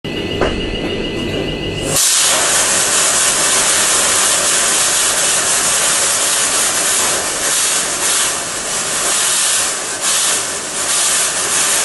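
Security fog cannon firing: a sudden, loud, steady hiss of fog jetting out starts about two seconds in and keeps going.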